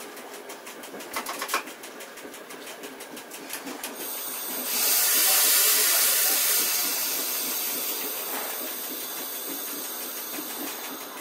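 Compressed air hissing out loudly in the cab of a double-deck regional train. It starts suddenly about four seconds in and dies away slowly. Before it, the running train and regular clicking of the wheels over the track are heard.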